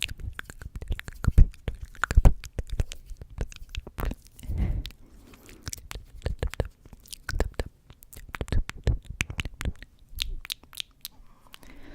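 Close-miked ASMR trigger sounds: a rapid, irregular run of sharp clicks and pops, with a soft breathy puff about four and a half seconds in.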